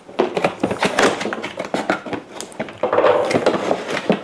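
Cardboard retail box being cut and pulled open: packing tape slit, then the flaps scraping and rustling as they are pried apart, in an irregular run of scrapes and light knocks.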